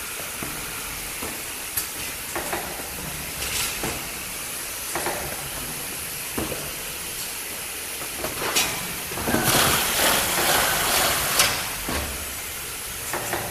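Automated robotic box-packing line running: a steady machine hiss with scattered clicks and knocks, and a louder rush of hissing air lasting about two seconds past the middle.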